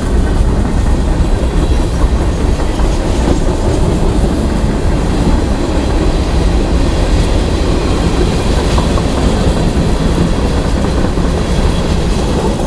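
Freight train of open-top hopper cars rolling past at track speed: a steady, loud rumble and rattle of steel wheels on rail, with a faint clickety-clack.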